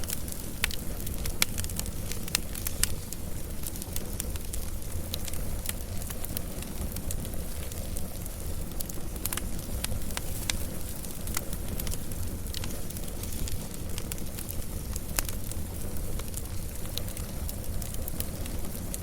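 Wood fire burning, with irregular sharp crackles and pops over a steady low rumble of the flames.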